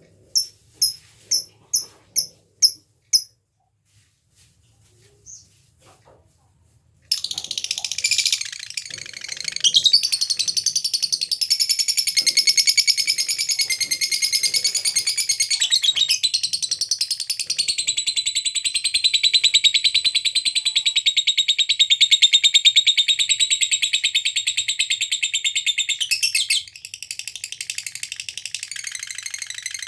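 Lovebird giving about seven sharp, high ticking calls in quick succession ('ngetik'), then after a short pause launching into a long, continuous, rapid chattering trill ('ngekek') that runs for about twenty seconds before dropping to a softer level near the end.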